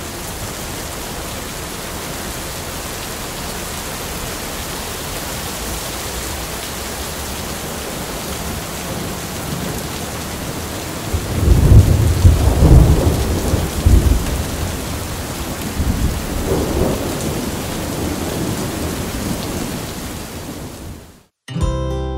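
Steady heavy rain with loud low rolls of thunder about halfway through and again a few seconds later; it cuts off suddenly just before the end.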